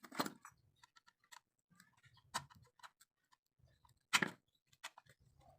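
Irregular light clicks and knocks of hard objects being handled, with louder knocks about a quarter second in, about two and a half seconds in and about four seconds in.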